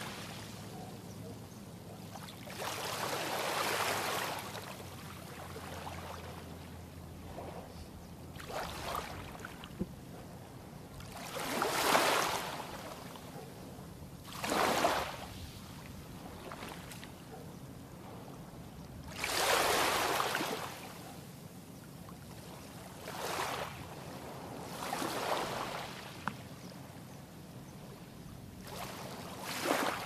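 Small waves of a calm sea washing onto a sandy beach: a soft hiss that swells and fades every few seconds, each wash lasting a second or two, with the loudest near the middle. A faint steady low hum lies underneath.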